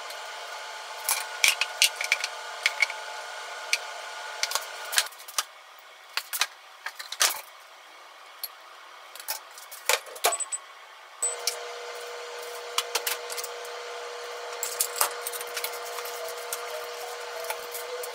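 Kitchen handling sounds: chopsticks clinking against a small glass bowl while stirring, then scattered clinks and knocks of utensils and dishes, and chopsticks tossing lettuce in a stainless steel bowl near the end. Under it runs a faint steady hum that stops for several seconds in the middle.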